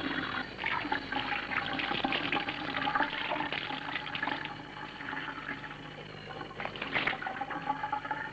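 Water running and splashing, an irregular rushing noise that swells and eases, with a louder surge about seven seconds in. A faint steady hum sits underneath.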